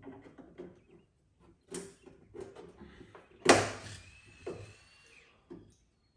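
A series of knocks and clunks, with one loud bang about halfway through, followed by a fading hiss and a thin whine that lasts about two seconds.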